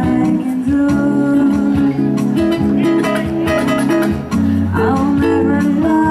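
Band music: guitar playing over bass and a steady percussion beat.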